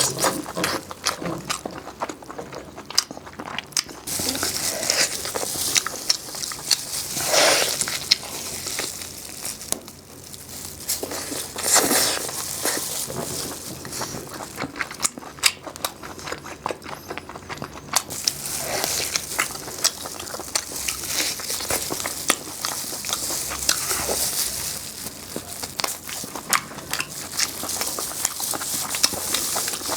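Close-miked eating sounds: biting into and chewing crispy food, a dense run of small crackles and clicks with louder crunches every few seconds.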